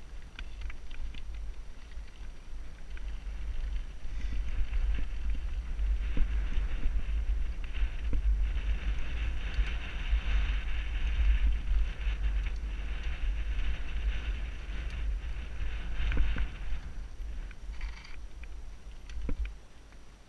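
Wind buffeting a helmet-mounted camera microphone during a mountain-bike ride, over the hiss and crunch of tyres rolling on a dirt and gravel trail, with scattered small knocks and rattles. The rush is loudest in the middle and dies down near the end.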